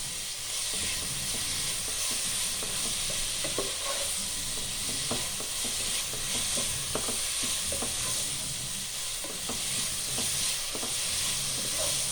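Sliced onions sautéing in hot oil in a pan, sizzling steadily, with a spoon clicking and scraping against the pan every second or so as they are stirred.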